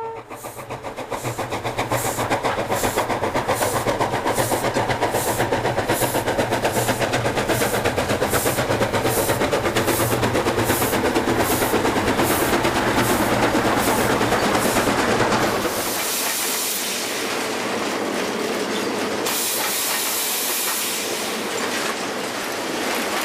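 QJ class steam locomotive working hard as it gets a passenger train under way, its exhaust chuffing steadily about twice a second. About 16 s in this gives way to a steady rushing hiss and rumble heard from inside the locomotive's cab.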